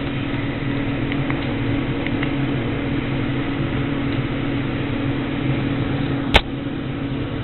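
Steady low mechanical hum with a constant low tone, broken by one sharp click a little over six seconds in.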